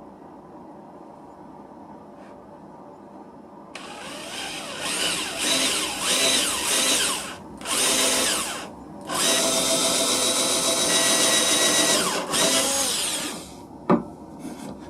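Electric drill boring into wood, run in three bursts with its speed rising and falling, starting about four seconds in and stopping with two short breaks. A single sharp click follows near the end.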